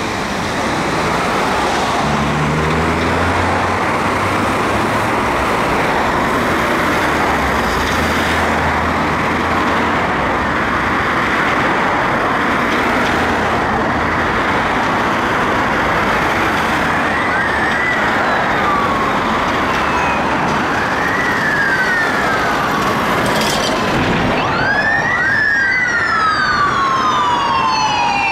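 Steady noise of passing road traffic, tyres and engines. From about 17 seconds in, police sirens approach: repeated sweeps that rise quickly and fall away, getting louder, with several sirens overlapping near the end.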